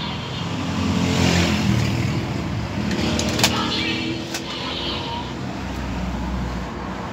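Electronic sound effects from a DX Valvarusher toy weapon's speaker playing its Steamliner vehicle-card sound, a revving vehicle-like effect. Two sharp plastic clicks come from the toy being handled partway through.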